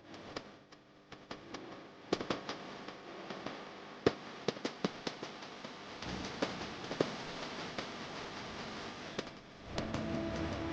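Irregular sharp pops and crackles, several loud ones standing out, over a low hiss while the background music breaks off.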